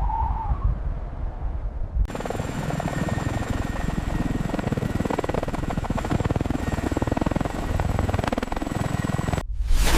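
Helicopter rotor and turbine noise: a dense, fast chop with a steady high whine. It comes in abruptly about two seconds in, after a low rumble, and cuts off suddenly near the end, where a loud rushing whoosh begins.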